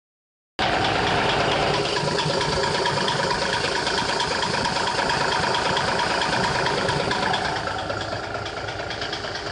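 Diesel engine idling steadily, heard from underneath the vehicle; the sound cuts in abruptly about half a second in.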